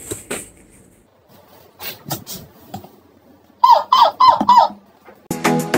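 Four short, squeaky imitation duck quacks in quick succession, each falling in pitch, followed near the end by the start of upbeat background music.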